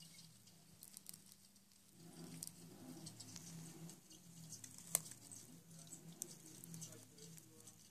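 Faint, irregular small clicks and crackles over a low steady hum, with one sharper click about five seconds in.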